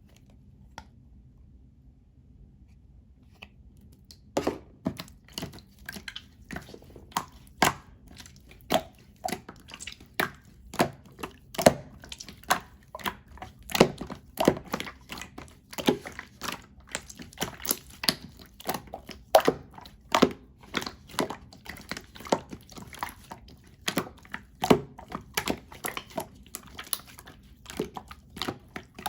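Over-melted, runny cheese slime being squeezed and pressed by hand, making repeated wet clicks and pops about two to three times a second, starting about four seconds in.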